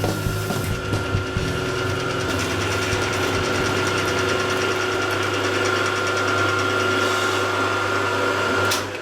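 Milling machine cutting metal with a carbide end mill: a steady whine with a low hum, which stops abruptly near the end.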